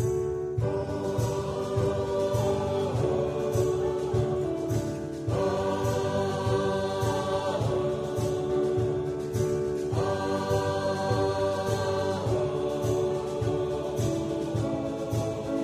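Mixed church choir of men's and women's voices singing an anthem in sustained, shifting chords, over an instrumental accompaniment with a steady low pulse.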